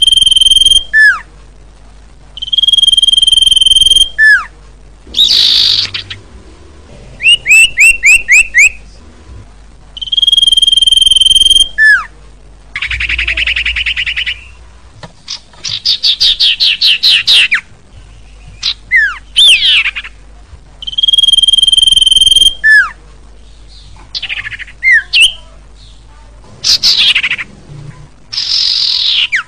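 Common iora song: long, steady whistled notes, each lasting over a second and ending in a falling slur, alternating with fast rattling trills and short quick chattering phrases.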